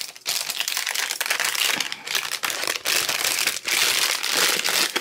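Clear plastic packaging bag crinkling as it is handled, in irregular rustling bursts with brief pauses.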